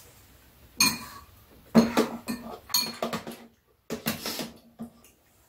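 Metal spoons and chopsticks clinking and scraping against ceramic bowls and a round metal tray while eating: a handful of sharp knocks from about a second in, several followed by a short ringing hum.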